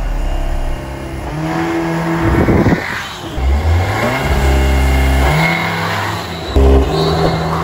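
Cupra Formentor VZ's 2.0 TSI turbocharged four-cylinder engine revving in repeated bursts, each held at steady revs for a second or two before dropping back, with a short sharp blip near the end.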